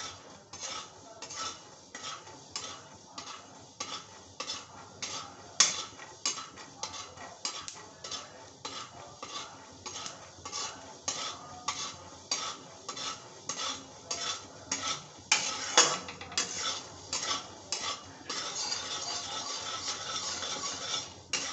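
Peanuts being stirred and tossed in a metal kadai with a steel spatula while they roast. The spatula scrapes and the nuts rattle in strokes about two a second, and near the end this turns into a quicker, continuous rattle.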